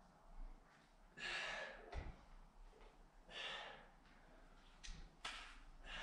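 A rock climber's hard, forceful exhalations, three strong breaths roughly every two seconds, the sound of hard effort on a difficult route. A short knock comes about two seconds in.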